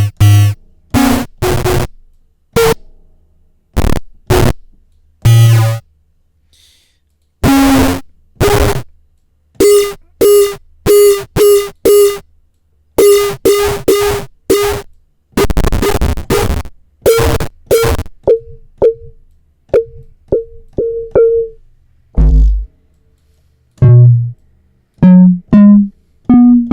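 Short synthetic hits of a sampled audio-feedback tone, triggered over and over from a software sampler as it is auditioned for a snare. Most hits sit on one mid pitch with a sharp attack and quick cut-off, some are noisier and longer, and near the end a run of hits climbs in pitch.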